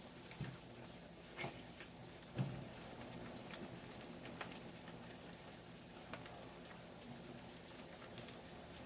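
Chicken wings frying in shallow oil in a skillet, with a faint, steady sizzle and scattered small pops. Metal tongs clack against the pan three times in the first few seconds as pieces are turned and lifted out.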